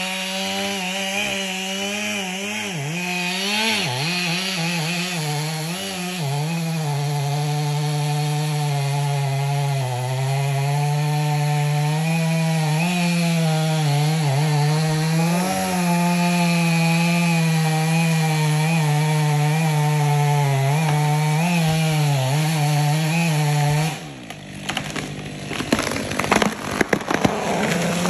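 Chainsaw running steadily under load, cutting through a tree trunk; near the end it cuts out and a run of sharp cracking and snapping follows as the tree breaks and falls through the branches.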